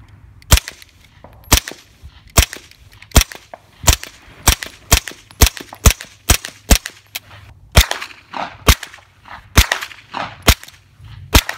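A 9mm carbine fired semi-automatically: a string of about seventeen sharp shots, one to two a second, at uneven intervals.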